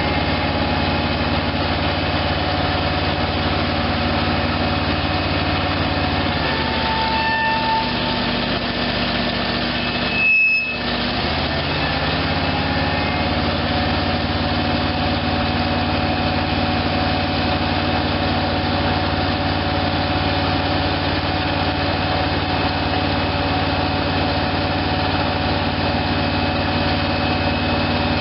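1972 Ford 800 truck's V8 gasoline engine running steadily. Its note shifts for a few seconds around seven seconds in, and a brief sharp high-pitched squeal comes about ten seconds in.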